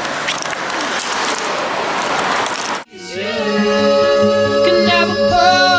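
A steady rushing noise cuts off suddenly about three seconds in, and a song begins, a singing voice holding long notes over music.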